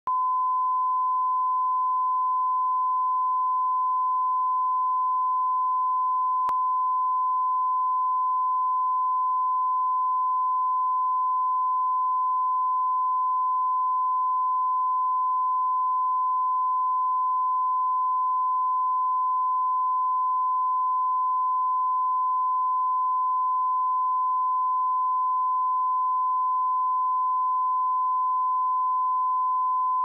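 A pure 1016 Hz sine-wave test tone, used for checking speakers and headphones, held at one steady pitch and level.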